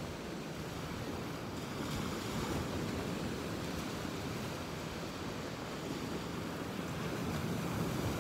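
Ocean surf washing steadily on a beach, with wind.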